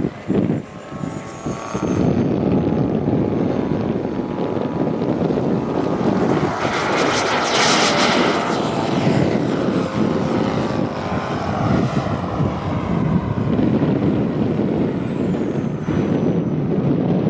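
Model jet's miniature turbine engine powering up for takeoff, growing louder about two seconds in, then a loud rushing pass close by around seven to eight seconds in. It settles into a steady jet roar with a high whine that drops in pitch near the end as the jet flies past overhead.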